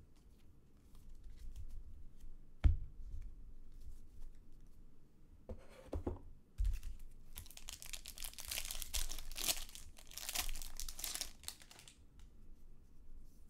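The wrapper of a trading card pack is torn open and crinkled. It makes a dense crackling tear lasting about four seconds, starting about seven seconds in. A sharp tap comes near three seconds in and a thump just before the tearing.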